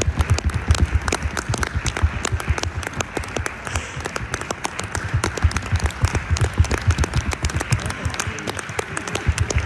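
Audience applauding steadily at the end of an orchestral concert, with some single claps standing out loud above the rest.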